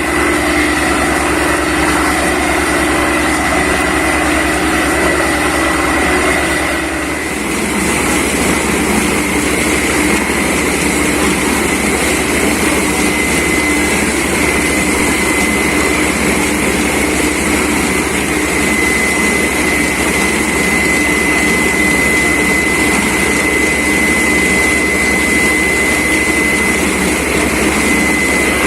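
Borewell drilling rig with its air compressor running steadily, a constant whine over a droning engine. About seven seconds in a strong hiss of blown air joins in and keeps on.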